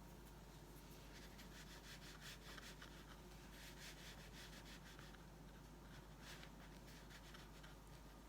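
Faint rubbing and scratching of a small watercolour brush on paper, in clusters of short quick strokes, over a low steady hum.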